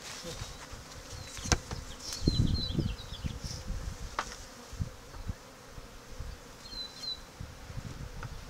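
Honeybees buzzing around an opened hive during its removal, a faint steady hum, with irregular low rumbles and a couple of sharp clicks.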